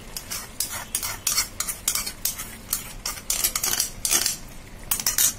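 Wooden spatula scraping and knocking beaten curd out of a small bowl into a pan of curry: a run of irregular clicks and short scrapes, several a second.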